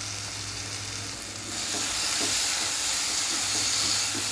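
Chicken curry sizzling in a nonstick kadai as the last of its water cooks off. A wooden spatula stirs it, and the sizzle grows louder about a second and a half in, with faint scrapes against the pan.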